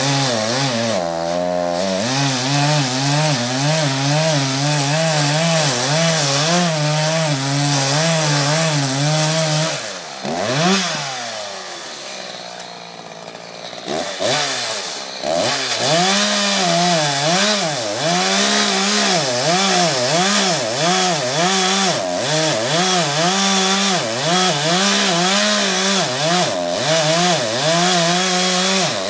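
Gas chainsaw cutting through a felled tree trunk, its engine pitch wavering under load. About ten seconds in it drops to a quieter idle for a few seconds, then revs back up and cuts again.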